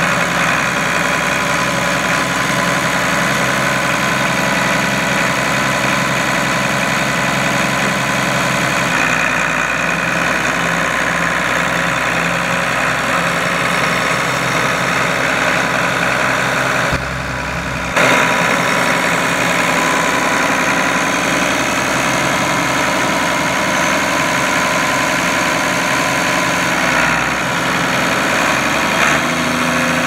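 Allis-Chalmers 185 farm tractor's diesel engine running steadily as the tractor is driven slowly. The engine note shifts about nine seconds in, and the sound dips for about a second a little past halfway.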